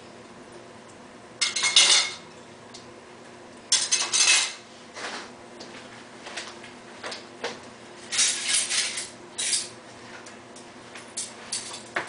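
Ceramic plates and drinking glasses clattering and clinking against each other and the dishwasher's metal wire rack as they are loaded, in several short bursts with quiet gaps between.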